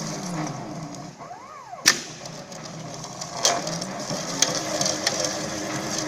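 Automatic copper-coil winding machine for induction-cooktop coils running. Its motor tone slides down, rises and falls again as it speeds up and slows, with one sharp click about two seconds in and a few lighter clicks later.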